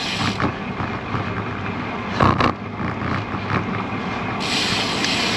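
Wind rushing over an action-camera microphone while riding a road bike into a headwind, with a brief louder sound a little after two seconds in.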